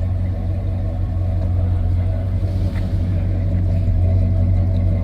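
Big-block V8 car engine idling steadily with a deep, throbbing burble.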